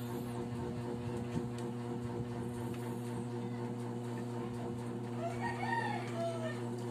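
A bird calls briefly about five seconds in, a short rising-and-falling call, over a steady electrical hum.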